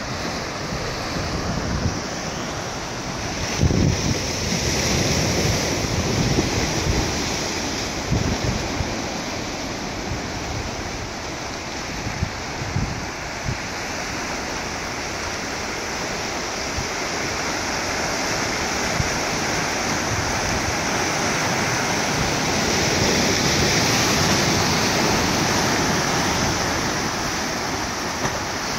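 Sea surf rushing and washing over the rocks of a small cove, a steady churning wash that swells louder in the last third. Wind buffets the microphone with low gusts now and then in the first half.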